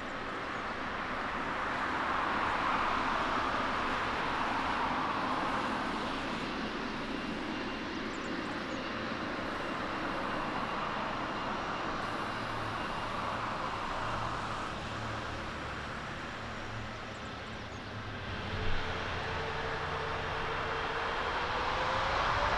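Boeing 777-300ER's GE90 jet engines running at low thrust with a steady rush. From about eighteen seconds in, a single whine rises in pitch and the sound grows louder as the engines spool up for the takeoff roll. There is a brief louder bump just after the whine begins.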